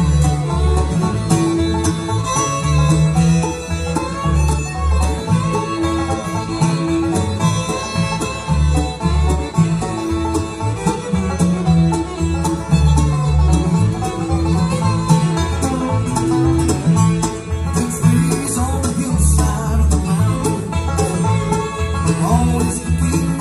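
Bluegrass band playing on fiddle, banjo, upright bass, acoustic guitar and mandolin, the upright bass plucking a steady pulse of low notes under the picking and bowing.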